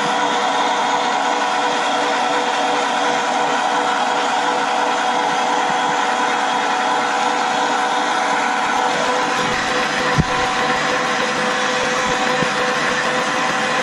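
Electric meat grinder's motor running steadily with a whine while a soft rubbery squishy toy is pushed down into it and ground. One sharp knock about ten seconds in.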